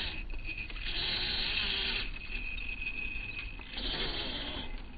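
Electric RC sand buggy running on a 3S LiPo: a thin, steady high motor whine, with two loud bursts of hissing as the wheels spin under throttle and spray sand, about a second in and again near the end.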